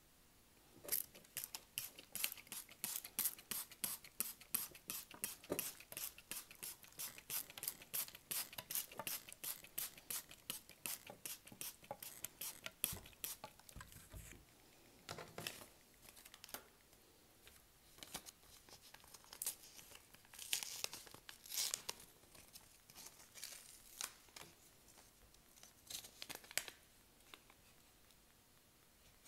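Fingers patting and tamping potting soil in a plastic seed tray: a run of light, quick taps, about three or four a second, through the first half. After that come scattered rustles, and near the end a paper seed packet is handled and torn open.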